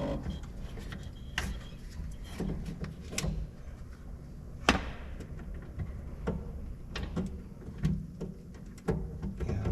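Scattered clicks and knocks of hand tools and metal parts being handled during work on a tractor's loader joystick, with the loudest knock about five seconds in, over a steady low hum.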